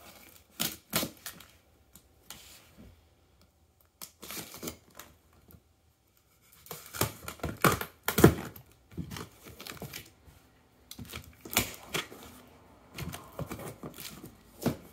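Cardboard tool box being unpacked by hand: a tight printed outer sleeve slid off the inner carton and its flaps folded open, in irregular scrapes, rubs and knocks, with a short quiet pause near the middle.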